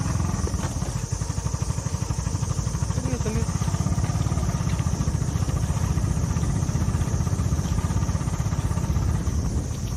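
Motorcycle engine running steadily while under way, its rapid low firing pulses unbroken throughout, with a steady high buzz above it.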